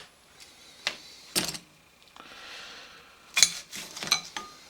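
Small sharp clicks and taps of tools and parts being handled on a motorcycle carburetor's choke linkage: a few scattered clicks, then a quick cluster of them near the end.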